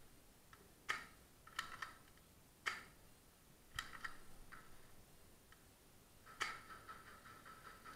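Faint, sharp airsoft gun shots, about five spaced a second or more apart, each with a short ringing echo off the concrete walls.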